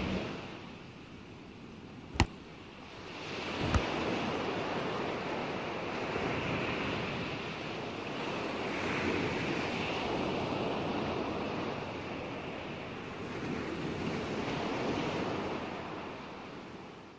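Ocean waves washing with wind, a steady rushing noise. Two sharp clicks come about a second and a half apart, two to four seconds in.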